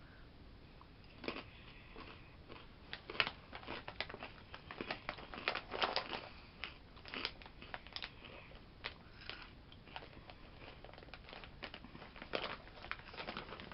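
Close-up crunching of a crisp, wafer-like Asiago and cheddar cheese cracker being bitten and chewed: many short, irregular crackly crunches.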